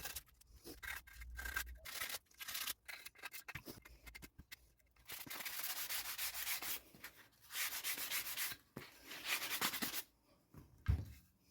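Sandpaper rubbed back and forth on wood in irregular hand strokes, with a short knock near the end.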